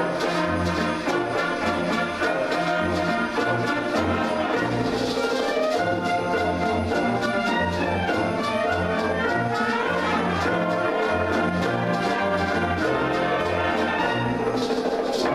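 Wind band playing an up-tempo light-music arrangement, brass carrying the tune over a bass line that moves in a regular rhythm and a steady percussion beat.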